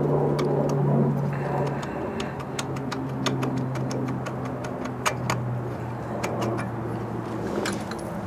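Sharp metal clicks and ticks as two screwdrivers work an epoxied aluminum cylinder head loose over its studs on a small single-cylinder engine. A steady low hum runs underneath and stops shortly before the end.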